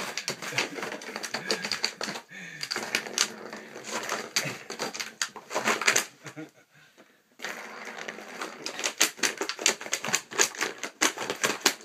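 Dog pawing at a plastic cat track toy with a cardboard scratcher pad: rapid, irregular clicking and clattering of paws and claws on the plastic ring and pad, with the ball rattling in its track. There is a lull of about a second a little past halfway.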